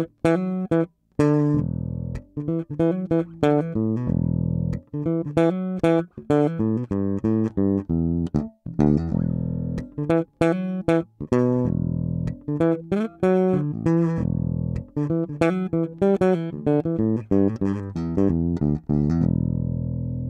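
Modulus Funk Unlimited 4 electric bass, with a Seymour Duncan MM-style pickup and an Aguilar OBP-1 preamp, recorded direct through a DI box, playing a busy funk riff of plucked notes with sharp, percussive attacks. A last note rings out near the end.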